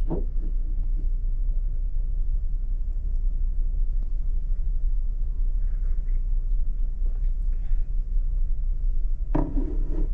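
Steady low rumble of the ferry's engines carried through the ship into the cabin. A ceramic mug knocks on the counter as it is set down at the start and sounds against it again as it is picked up near the end.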